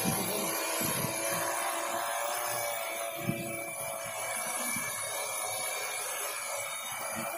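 Quadcopter's four electric motors and propellers humming steadily in a hover, with several fixed pitches layered together. Irregular low rumbles of wind on the microphone sit underneath, and there is a single short click about three seconds in.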